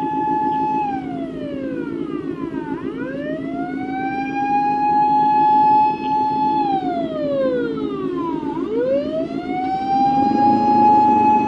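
Emergency vehicle siren wailing: a long held high tone that slides down and climbs back up, twice, about six seconds per cycle. Under it runs the steady low sound of a motorcycle engine.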